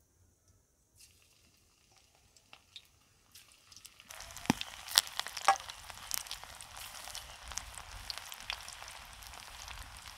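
Battered chicken pakora deep-frying in hot oil in a wok: after a quiet start, a sizzle starts about four seconds in with a few sharp crackles and pops, then settles into a steady frying hiss.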